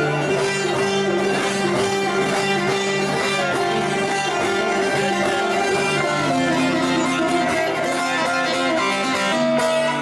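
Turkish folk music played on a plucked bağlama (long-necked saz) with keyboard accompaniment, a steady run of melody without pause.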